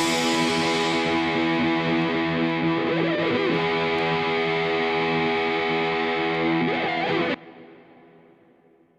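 Background music: a held, distorted electric guitar chord rings on steadily, then cuts off sharply about seven seconds in, leaving a brief fading tail.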